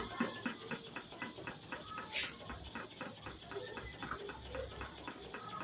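Hair clipper blade being rubbed back and forth on a sharpening stone in quick, regular strokes, about four a second, to grind the cutting edge back.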